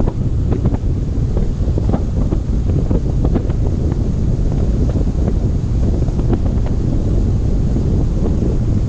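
Strong wind buffeting the microphone, a loud, fairly even low rumble, with many scattered sharp ticks throughout.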